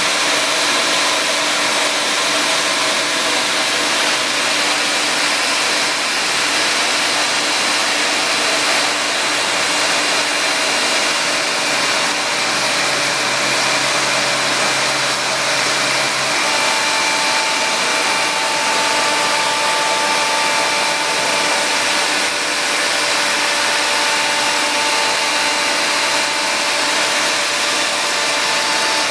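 vonHaus ash vacuum running steadily as extraction for a CNC dust skirt: a loud, even rush of air. Faint whining tones ride on it and change about halfway through.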